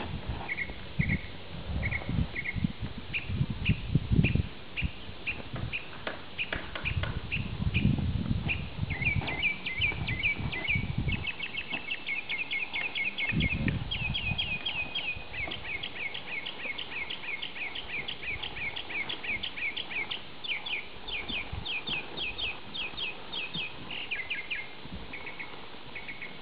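Songbirds chirping in quick runs of short high notes, which thicken into a near-continuous rapid trill from about the middle on. Dull low thumps come and go in the first half.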